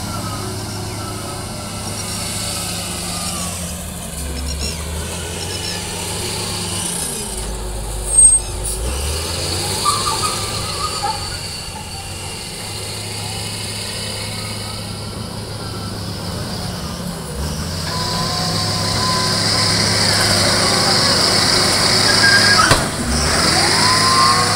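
Lonking wheel loader's diesel engine running under load, with a wavering whine over the engine and a sharp knock about a third of the way in. The engine grows louder in the last several seconds as the bucket is driven into a sand pile.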